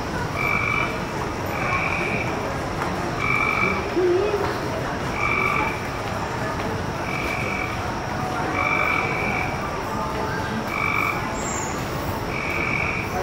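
Frog calls: short croaks of about half a second each, repeating every second or two over a steady background of noise.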